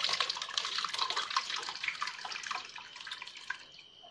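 Pulpy fermented banana wine pouring from a ceramic jar into a mesh strainer over a steel pot: a steady splashing pour that thins out and fades near the end.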